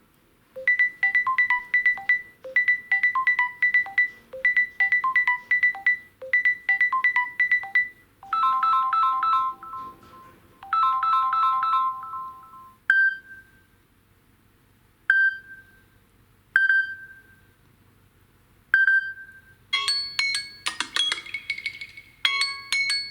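Samsung Galaxy Note10 Lite stock ringtones playing in turn, each looping. First a short bright chime phrase repeats four times, then a two-note electronic ring sounds twice, then a single ringing ping four times about two seconds apart, and from near the end a busier, faster melody.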